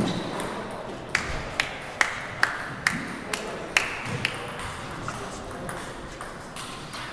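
Table tennis ball bouncing: a run of about seven sharp pings a little under half a second apart, then a few fainter ones.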